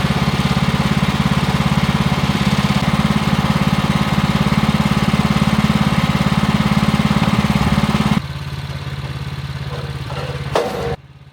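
Woodland Mills bandsaw sawmill's gas engine running steadily under load as the blade cuts through green loblolly pine, then dropping to a lower, quieter running about eight seconds in. Near the end comes a single thud of a heavy, sap-filled pine board dropping.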